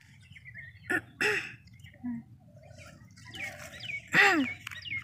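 Short wordless vocal sounds from the women: a brief one about a second in, then a louder one falling in pitch about four seconds in. Faint high chirps run between them.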